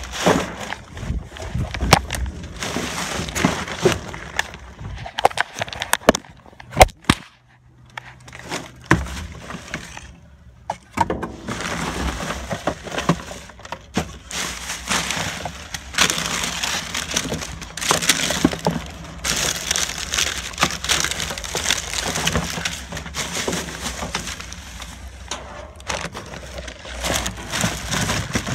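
Trash being rummaged through in a dumpster: plastic bags, bubble wrap and cardboard rustling and crinkling, with irregular knocks and clatters as boxes and plastic bottles are shifted. It goes quieter twice for a moment partway through.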